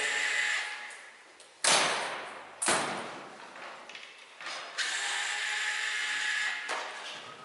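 Cordless drill-driver whirring briefly at the start and again for about two seconds in the second half, with two sharp knocks about a second apart in between.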